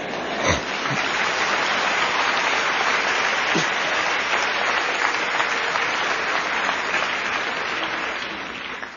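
Congregation applauding, one long round of clapping that swells up at the start, holds steady and dies away near the end.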